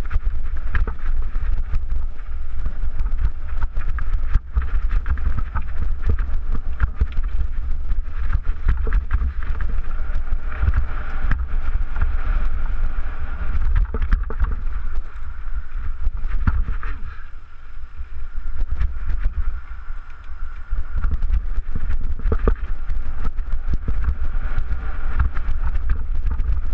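Wind rumbling on the camera microphone and a mountain bike clattering and rattling over rocks during a fast descent of a rocky singletrack. It eases for a few seconds about two-thirds of the way through.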